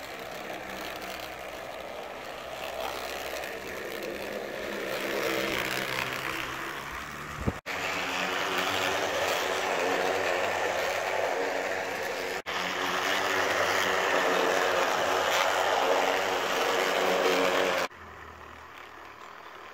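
3D-printed On30 model diesel locomotive running along a curved track, its drive and wheels making a steady mechanical whirring hum. The sound grows louder through the middle and drops sharply near the end.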